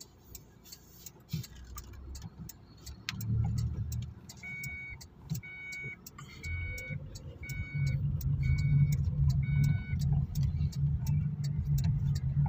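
Inside a car: the turn-signal indicator ticks steadily about twice a second over the low hum of the engine, which grows louder in the second half. Six short electronic beeps sound evenly spaced through the middle.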